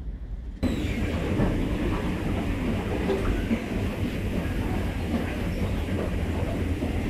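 Train running on the rails: a steady rumble with scattered rattles and clicks. It starts suddenly about half a second in, after a quieter low rumble.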